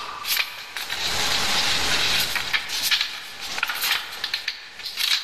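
Rustling and crackling handling noise with many scattered clicks, like something being rubbed and crumpled close to the microphone.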